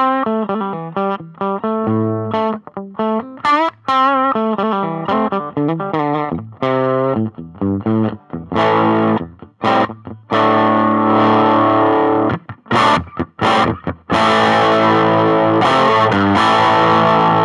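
Fender '52 reissue Telecaster on its bridge pickup, guitar volume knob rolled down, played through a miked Marshall Origin 5 all-tube 5-watt amp with an 8-inch speaker. Quick single-note lines first, then ringing chords with short stabs and breaks, and a long held chord near the end.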